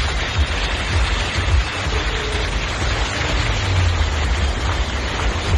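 Car driving through floodwater: the tyres churn and throw up a steady wash of spray, with wind buffeting the microphone as a low, uneven rumble.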